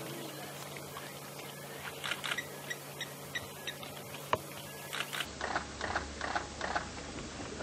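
African wild dog tearing and chewing at an antelope carcass: scattered wet clicks and crunches, coming thicker in a quick run near the end.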